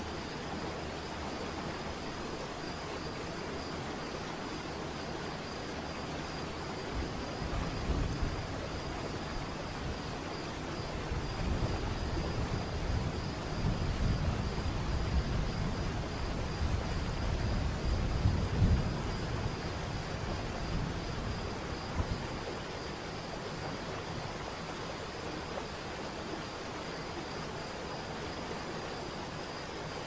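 Waterfall ambience: the steady rush of falling water, with a faint steady high tone throughout. From about 7 seconds in a low, uneven rumble swells and peaks several times before fading back about 22 seconds in.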